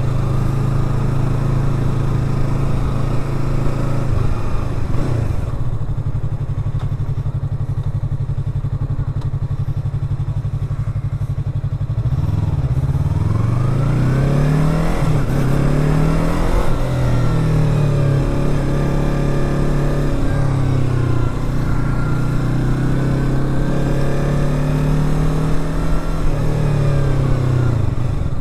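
Yamaha YZF-R3's parallel-twin engine heard from the rider's seat. It runs steadily, eases off about four seconds in and stays low for several seconds, then accelerates again with the pitch climbing and dropping at each upshift before settling into a steady cruise.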